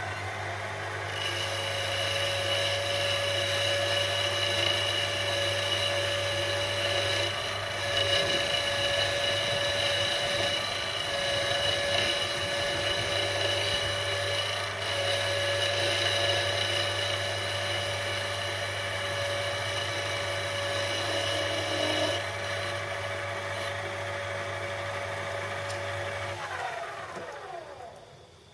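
Metal lathe running as a cut is taken along a shaft, the tool cutting with a steady high-pitched ring for about twenty seconds. After the cut ends, the lathe is switched off and spins down with falling pitch near the end.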